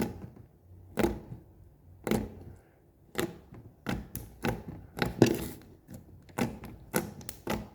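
Slime being squeezed and folded by hand, making sharp clicks about once a second that come faster in the second half.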